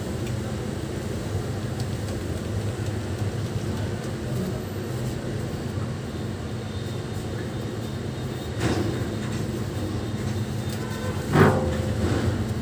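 Steady low background rumble, with a brief louder noise about nine seconds in and a sharper, louder one about eleven seconds in.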